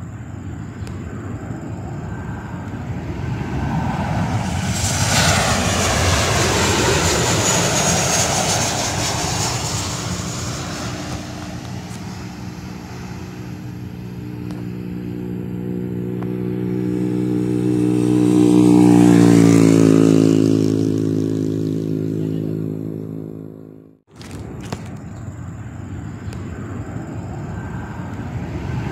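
Jet airliner engines as the plane passes low overhead on approach: the noise swells, peaks about two-thirds of the way through, and the engine tone drops in pitch as it goes by. Near the end it cuts off suddenly and engine noise starts to build again.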